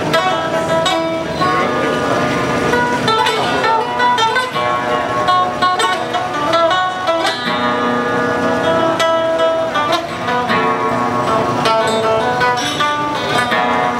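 Live acoustic instrumental music led by plucked acoustic guitar, with held melody notes over it, playing steadily.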